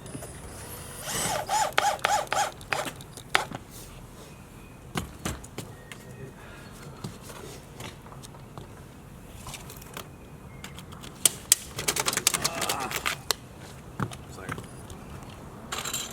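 Cordless drill driving screws to fasten roof insulation board, in short whirring bursts a little over a second in and again around twelve seconds in, with scattered knocks and clicks between.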